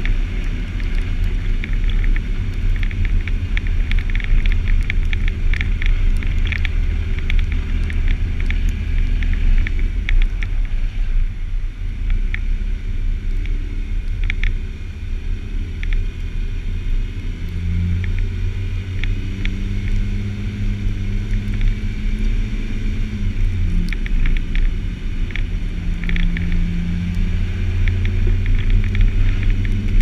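Jeep Wrangler driving on a snow-covered road, heard from a camera mounted outside on the front of the vehicle: a steady low engine hum with tyre and wind noise and scattered light clicks. The sound dips a little near the middle, then the engine note grows stronger.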